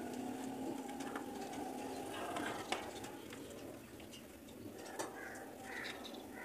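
Birds calling, including cooing like pigeons or doves, over a steady background hiss, with two light clicks and a few short high calls near the end.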